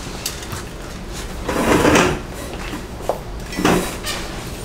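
Two brief household handling noises: the first comes about one and a half seconds in and lasts about half a second, the second is shorter and comes near the end.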